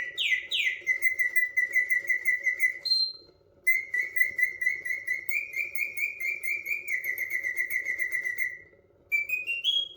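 Karl Griesbaum mechanical singing-bird automaton in a cage, its bellows-driven whistle playing a birdsong: fast trills of repeated notes near one pitch, in three phrases with two short pauses. A faint steady hum runs underneath.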